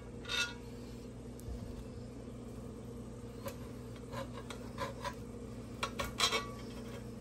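Knife cutting through a skillet of cornbread, with scattered short clicks and scrapes of the blade against the metal pan, most of them in the second half.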